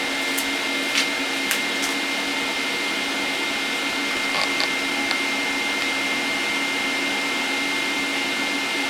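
Dust collection running: steady air rush and motor noise drawn through the router's dust-shoe hose, with a thin, steady high whine over it and a few faint ticks early on.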